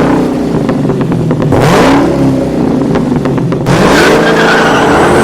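An engine revving up and down over and over, its pitch climbing, holding, then dropping several times.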